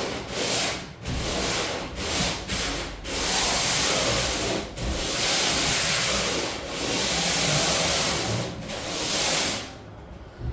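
Sanding of first-coat primer on plywood walls: a rough rubbing noise in long strokes with short breaks between them, stopping abruptly near the end.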